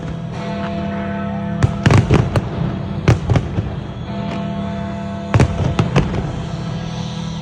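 Fireworks bursting in loud, sharp bangs that come in clusters every second or two, over music with steady held notes.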